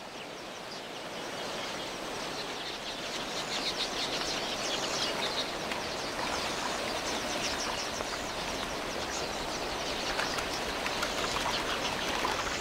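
A huge flock of red-billed queleas chirping in a dense, unbroken chatter over the water, swelling over the first few seconds.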